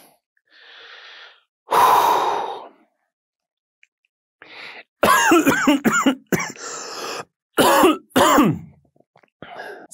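A man takes a breath and gives one loud cough about two seconds in. A few seconds later come several bursts of wordless vocal sound with sliding pitch.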